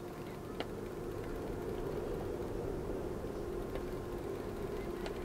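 Boat engine running steadily with a constant hum, and a few brief clicks over it.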